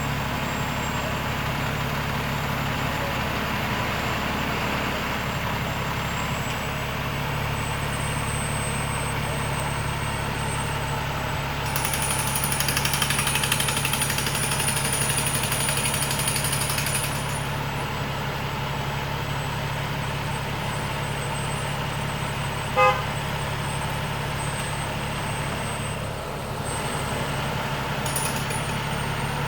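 A crane's engine runs steadily with a low hum. For about five seconds, from around twelve seconds in, a higher hissing noise is added. About twenty-three seconds in there is one short, loud, horn-like toot.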